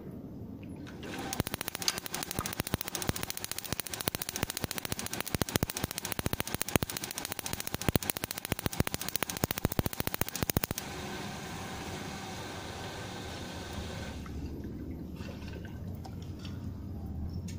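Gas instantaneous water heater clicking rapidly and continuously for about ten seconds, then a steadier rushing of water running through it that eases off near the end. The title presents this as the sign of a faulty gas solenoid valve.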